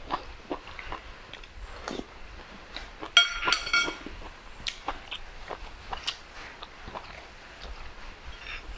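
Close-miked chewing and mouth sounds of a man eating rice and curry, with small irregular clicks. A short high squeak a little after three seconds in is the loudest sound.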